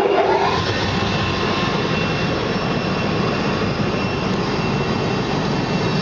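Bubble-type fish and meat washing machine's electric motor just switched on: its hum rises in pitch over about the first half second, then it runs steadily with an even rushing noise.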